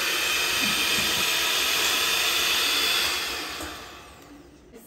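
Sunbeam stand mixer's electric motor whirring steadily with its beaters turning in thick chocolate cake batter, then winding down and going quiet about three to four seconds in.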